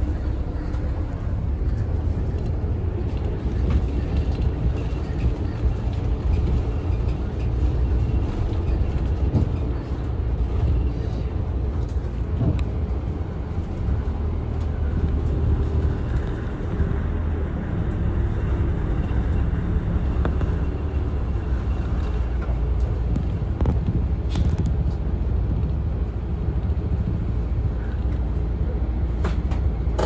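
Route bus running, heard from inside the cabin: a steady low engine and road rumble.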